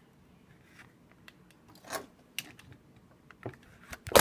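Handling noise from a plastic model kit being held and moved: soft rubbing and a few light clicks. Near the end comes a louder knock and rustle as the camera is grabbed and moved.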